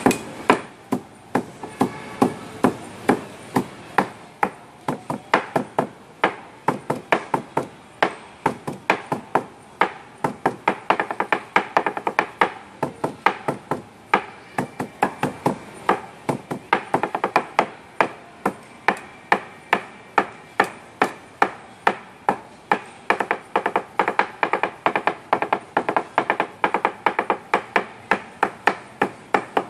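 Cleaver chopping sisig on a wooden chopping board in a fast drumming rhythm, about three sharp knocks a second.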